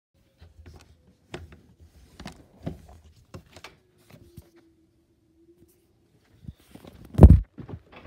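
A handheld phone being moved and rubbed against the microphone: scattered knocks and scuffs, with a faint steady tone underneath in the middle, and one loud thump about seven seconds in.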